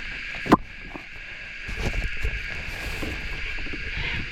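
Rod, reel and boat handling noises while a hooked fish is played: a sharp knock about half a second in, then scattered smaller knocks and rustles, over a steady high hiss.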